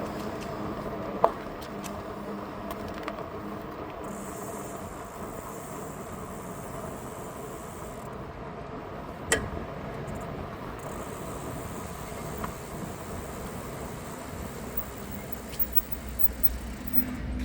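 Aventon Aventure.2 electric bike with a steady mechanical hum, broken by two sharp clunks, one about a second in and one about nine seconds in: the clunky noise the owner is trying to track down.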